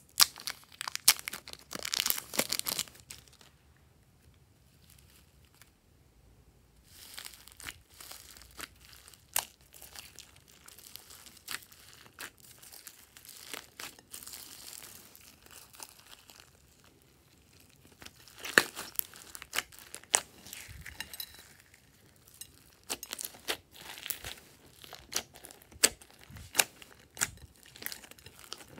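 Thin plastic wrapper crinkling and tearing as a packet of soft clay is peeled open, with dense crackles for the first few seconds. After a short pause, glossy slime is mixed by hand with clay and foam beads, giving scattered sticky clicks and crackles.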